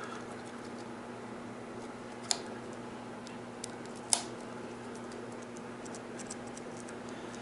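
Plastic fender latch being worked around a bike seat post: two sharp clicks a little under two seconds apart, then several lighter ticks and scratches near the end.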